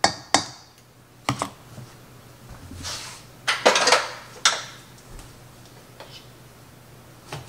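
A few sharp knocks and clatters of kitchen things being handled: a wooden spoon knocked against a stainless saucepan, then a plastic sour cream tub and metal tongs set down on the counter, the loudest clatter about three and a half to four seconds in.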